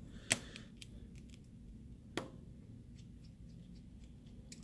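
Faint small clicks and ticks of a tri-point screwdriver and tweezers working the tiny screws out of the earpiece bracket in an iPhone X, with two sharper clicks, one just after the start and one about halfway through.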